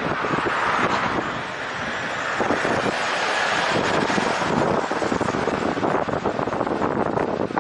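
Wind buffeting the microphone of a camera on a moving bicycle, a steady rush with gusty flutter, mixed with the noise of road traffic.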